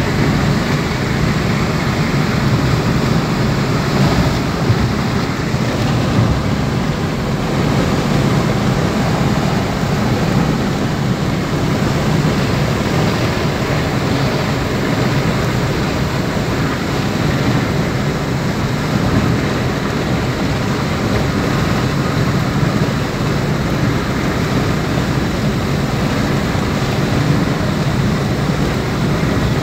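Steady road and tyre noise with the engine running, heard from inside a car's cabin while cruising on a highway.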